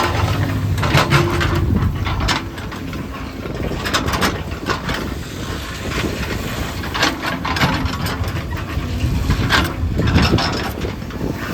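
Heavy diesel construction machinery running steadily, with irregular short clatters or knocks on top.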